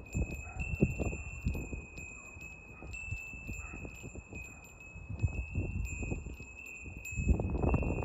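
Wind chime of small copper-alloy bells ringing in the breeze: a steady high ring with many light, irregular strikes. Low gusts of wind buffet the microphone, strongest near the end.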